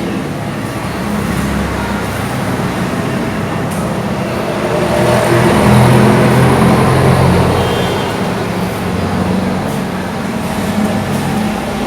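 Road traffic: a motor vehicle's engine sound that grows louder to a peak about halfway through, then fades.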